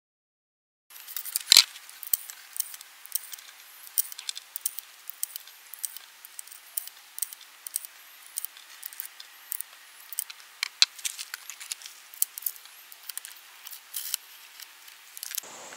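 Brass .22 LR cartridges clicking and clinking as they are loaded one by one into the Marlin Model 60's tubular magazine, a run of small metallic clicks starting about a second in, with a sharper click shortly after.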